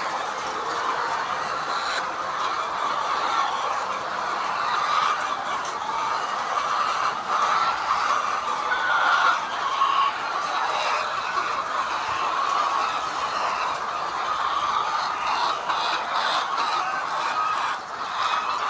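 A large flock of chickens in a poultry shed, many birds clucking and calling over one another in a steady, continuous din.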